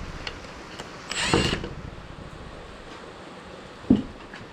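Alternator being worked free of its engine mounting: a short metallic squeal about a second in, then a single knock near the end.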